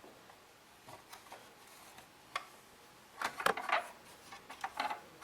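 Scattered light clicks and knocks of something being handled, with a quick cluster of rattling clicks about three seconds in and a few more near the end.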